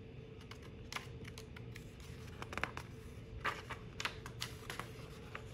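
Paper pages of a picture book being handled and turned: a loose run of soft crinkles and clicks, irregular and spread through the few seconds.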